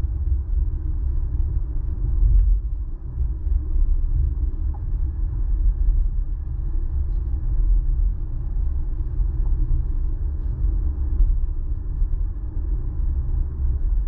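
Steady low rumble of a car driving on a wet road, heard from inside the cabin: engine and road noise.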